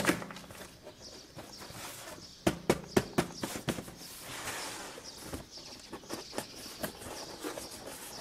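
Irregular light knocks and taps, bunched most densely about two and a half to four seconds in, over a faint hiss.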